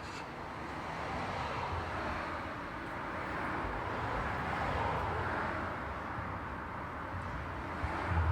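Road traffic passing steadily: a wash of tyre and engine noise that swells as vehicles go by, peaking about five seconds in, and eases off again.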